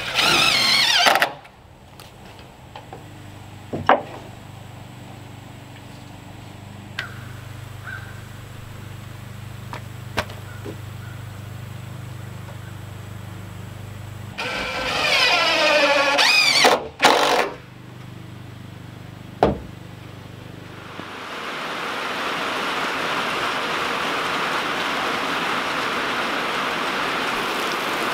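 Cordless drill driving screws into wood in two short bursts about fifteen seconds apart, each a whine that climbs as the motor spins up, with a few sharp knocks between. About two-thirds of the way in, steady rain falling on wet ground takes over.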